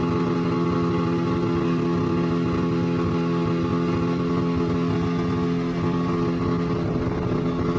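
Motorboat engine running steadily at speed while towing a banana boat, its pitch holding even, over the rush of water.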